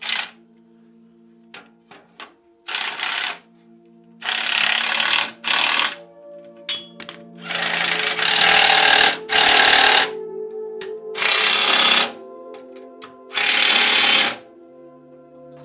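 Cordless impact driver with a socket running bolts into the tractor's steel frame, in about seven separate hammering bursts from brief to about a second and a half long.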